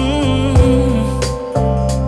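Background music: a sung melody with vibrato over steady bass notes and a beat of drum hits.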